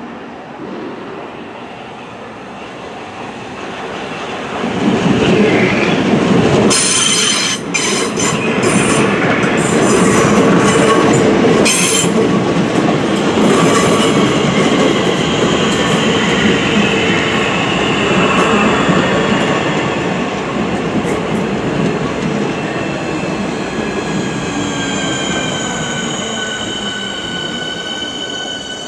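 Electric multiple-unit train moving along the platform, its wheels clacking over rail joints in a quick run of clicks. A high whine rises slightly in pitch near the end.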